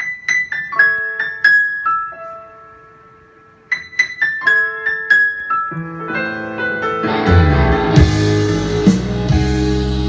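Multitrack band recording played back. A keyboard plays a sparse run of single ringing notes with a pause partway through. About six to seven seconds in, bass, fuller chords and drum kit come in.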